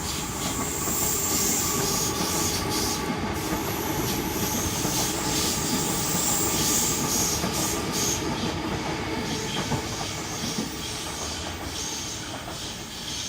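Sydney Trains Waratah A-set electric train passing underneath, with a steady rumble and a high wheel squeal over it. The sound eases off near the end.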